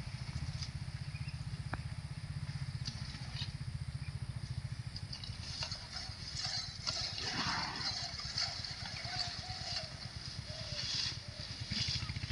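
A motorcycle engine idling with a steady, fast low pulse. From about seven seconds in, fainter higher sounds come and go over it.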